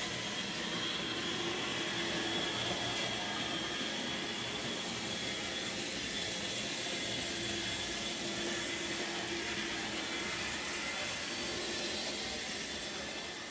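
A steady whirring hiss with a faint high-pitched whine running through it.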